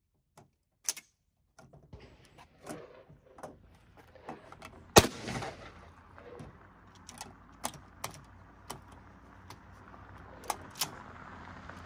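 Scattered metallic clicks and clacks of a Rock Island Armory VR80 12-gauge semi-auto shotgun being handled on a shooting bench, with one much louder sharp crack about five seconds in.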